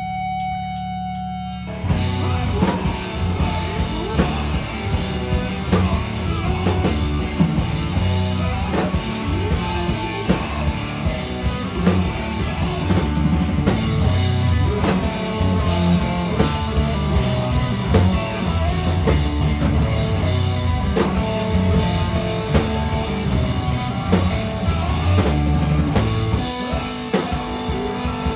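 Rock band music. Sustained guitar tones ring for about two seconds, then a Castle Drum Company drum kit comes in with the full band, played hard with a steady beat of kick, snare and cymbals.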